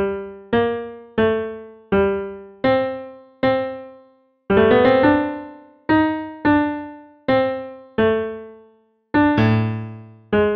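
Slow solo piano music: single notes struck one after another, each ringing and fading away, with a denser rolled cluster of notes about halfway through.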